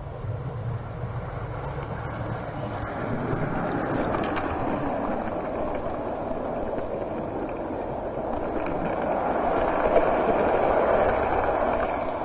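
Model train, a 'Duchess' locomotive hauling a rake of coaches, rolling along garden-railway track: a steady rumble and rattle of wheels on rail, getting louder as the coaches pass close, loudest about ten seconds in.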